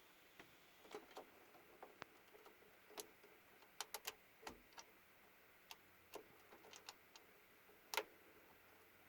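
Faint, irregular clicks and taps from hands working on the RAM inside a desktop PC, with the loudest click about eight seconds in; the likely sources are the memory modules and the plastic latches of their slots.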